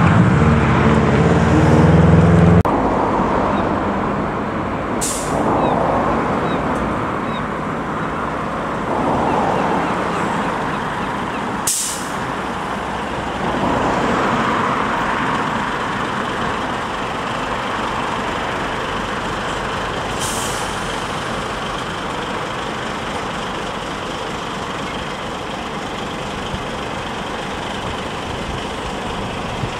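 Scania 94D fire engine's diesel running amid road traffic, with three short, sharp air brake hisses spaced several seconds apart. A louder, deeper engine drone in the first couple of seconds cuts off abruptly.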